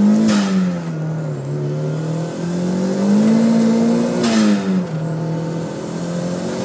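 Turbocharged Honda D-series four-cylinder heard from inside the cabin, pulling at full throttle. The revs climb, fall at a gear change just after the start, climb again toward about 7,000 rpm and fall at a second shift about four seconds in. Each shift brings a brief rushing hiss.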